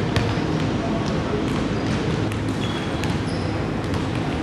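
Basketball bounced on a hardwood gym floor at the free-throw line, a few separate bounces over steady background noise in the gym.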